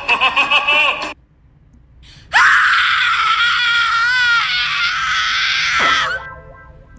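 A loud, long scream of about four seconds that wavers and sinks slightly in pitch before cutting off abruptly. Before it, a short sung music clip ends suddenly about a second in, followed by a brief silence.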